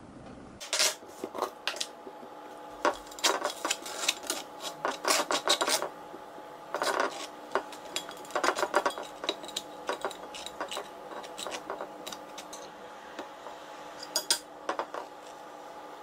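Butter knife scraping peanut butter and then jam across dark, crisp toast: a run of short, rasping scrapes with occasional clinks of the knife. A faint steady hum sits underneath.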